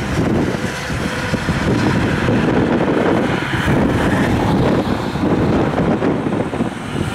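Steady highway traffic noise: tyres and diesel engines of semi-trucks and cars approaching, with some wind noise on the microphone.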